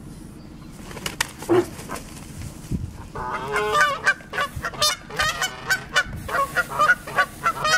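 Canada geese honking, a fast run of short, loud calls one after another starting about three seconds in.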